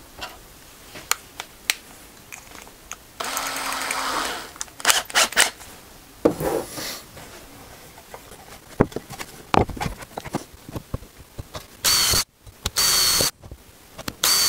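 Cordless drill boring screw holes into a wooden router fence, run in three short bursts near the end, each with a steady high whine. Before that, scattered knocks and clicks of tools being handled on the bench.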